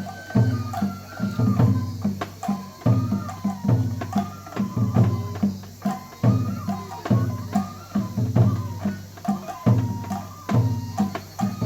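Japanese festival lion-dance music (hayashi): a bamboo flute plays a melody of held, stepping notes over a steady, rhythmic taiko drumbeat.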